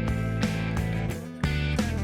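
Background instrumental music with guitar: steady chords, with a beat that changes about every quarter to half second.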